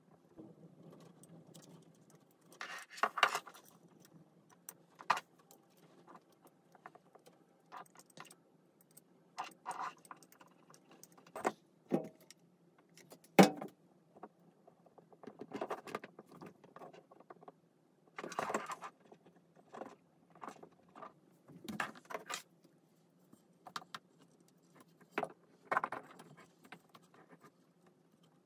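Hand-assembly handling noises: scattered clicks, taps and rustles of small plastic, metal and wooden parts being fitted together, with one sharp click about halfway through.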